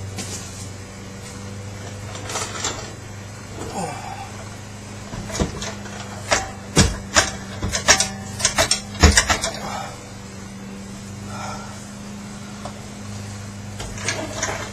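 Sharp metal clanks and knocks, about a dozen in quick succession in the middle, as a transfer case is worked into place under the vehicle, over a steady low electrical hum.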